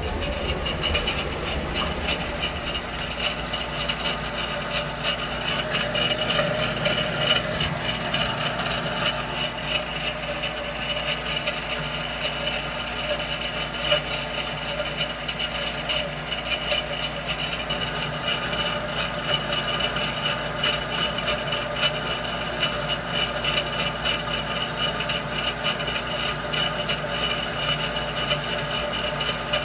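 A faulty heater running with a steady mechanical whir and a fast, continuous rattling tick, the loud noise that marks the heater problem.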